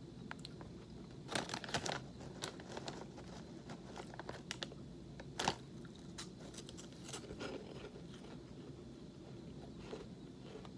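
Crunching and chewing on baked cheese puffs. A quick run of crunches comes about a second and a half in, and the sharpest single crunch about halfway through, then softer chewing.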